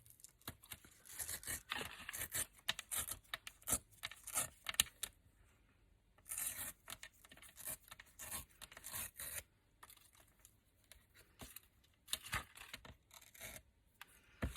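Paper being torn along a deckle-edge ruler in short stop-start rips, giving it a ragged deckle edge, with a couple of brief pauses.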